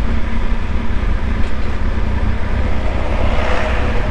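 Motorcycle on the move: a steady low rumble of the engine running and air rushing past the microphone. A hiss swells up about three seconds in.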